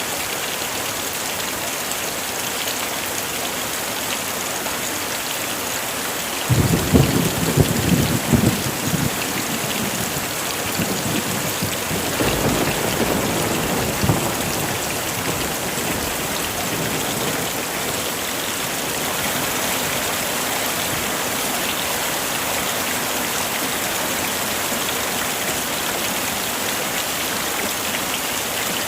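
Heavy rain falling steadily. About six seconds in, a sudden crack of thunder rumbles for a couple of seconds, and a second, softer roll of thunder follows a few seconds later.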